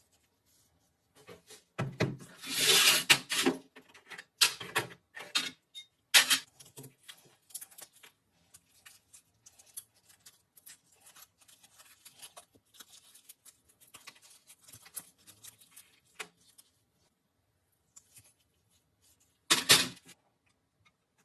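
Metal rifle parts being handled and worked by hand: scattered clicks and knocks. There is a louder rasping stretch about two to three and a half seconds in, a sharp knock around six seconds, and another brief loud rasp near the end.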